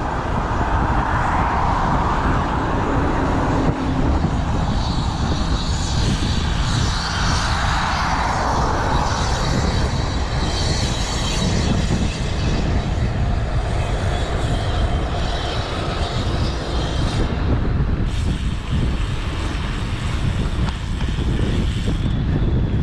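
Wind rumbling on the microphone while cycling at speed, with road traffic alongside whose noise swells and fades as vehicles pass, twice most clearly.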